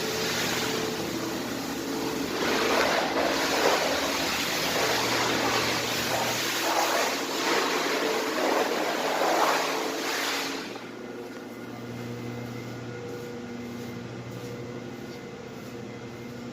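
Pressure washer wand spraying water with a steady hiss, over the pressure washer's engine running. The spray cuts off about ten seconds in, leaving the engine running steadily.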